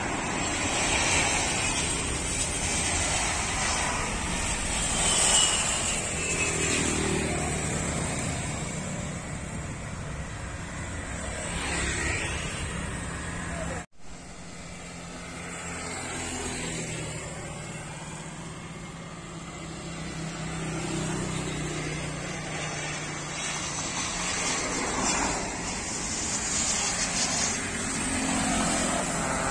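Jet aircraft on landing approach, blended with cars and motorbikes passing along the road. The sound drops out for an instant about halfway through.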